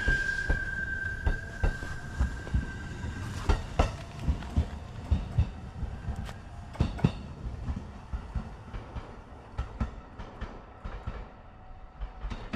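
JR local electric train pulling out and moving away: a steady high whine fades out over the first few seconds while the wheels clack over the rail joints, the sound growing fainter as the train recedes.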